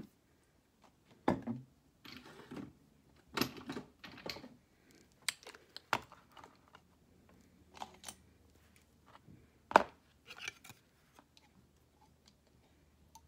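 Irregular clicks, knocks and short scrapes of makeup containers being handled and set down, the sharpest knock about ten seconds in.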